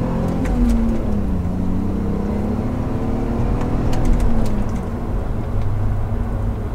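2003 BMW E39 530i's 3.0-litre straight-six through a muffler-deleted exhaust, heard from inside the cabin while driving, over a steady low road rumble. The engine note climbs and drops back a few times as the car accelerates and eases off.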